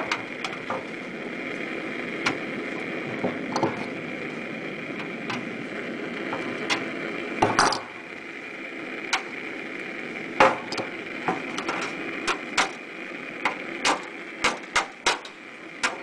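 Formed zinc sheet flashing pieces being handled and slotted together: scattered sharp metallic knocks and clicks, a louder clatter about seven and a half seconds in and a quicker run of knocks near the end. A steady background hum runs underneath.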